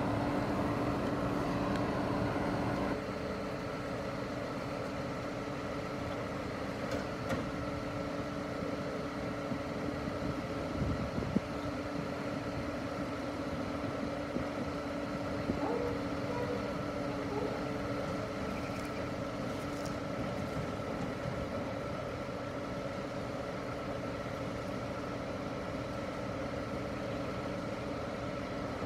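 Scania R124 truck's six-cylinder diesel engine running steadily while it drives the hydraulic loader crane through its moves; the hum steps down a little about three seconds in. A sharp clunk about eleven seconds in and a few lighter knocks come from the crane's movement.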